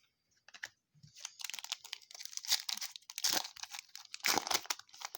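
A foil trading-card pack wrapper being torn and crumpled: crinkly crackling in three bouts.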